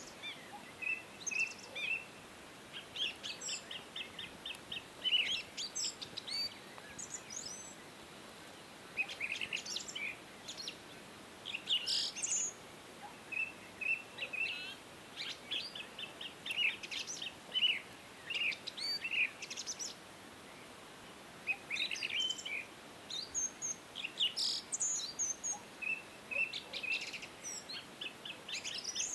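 Birds chirping in repeated bursts of quick, short high notes, with brief lulls, over a faint steady hiss.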